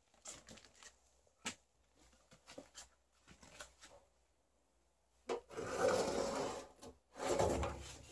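Handling and movement noise on wood: light scattered knocks and creaks, then two longer, louder scraping rubs about six and seven and a half seconds in.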